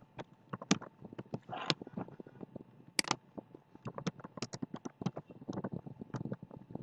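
Computer keyboard keys clicking in quick, irregular strokes as a password is typed.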